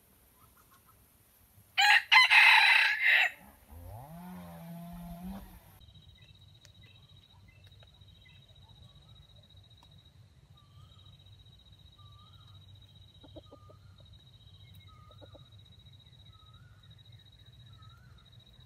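A rooster crows once, very loudly, about two seconds in, ending in a lower drawn-out note. After it come faint, repeated short chirps of a small bird.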